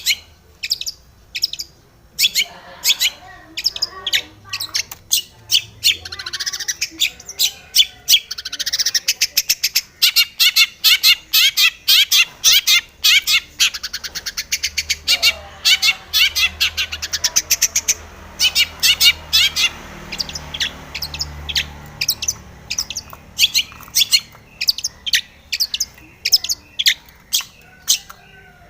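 Long-tailed shrike (cendet) calling in an agitated run of short, harsh notes, a few a second at first, quickening into a fast rattling chatter partway through, then spacing out again.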